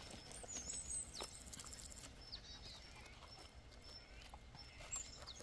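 Quiet rural outdoor ambience with faint, short high chirps of small birds and a few light taps or knocks.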